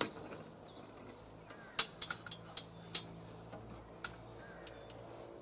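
Sharp clicks and light taps, about seven spread over a few seconds with the loudest about two seconds in, from a cordless drill-driver and screws being handled and set against a timber frame; the drill itself is not running.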